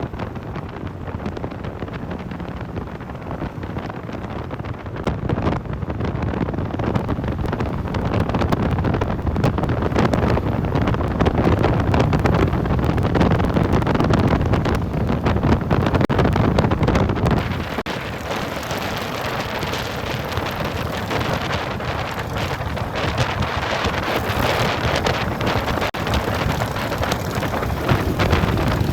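Motorcycle on the move, its engine running under heavy wind noise on the microphone; the low rumble drops away about 17 seconds in.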